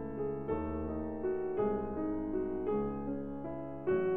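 Background piano music: slow chords, each held for about a second before the next.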